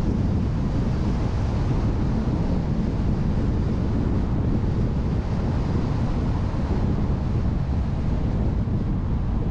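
Steady wind and road noise from a moving car, with wind buffeting the microphone: a dense, even low rumble with no breaks.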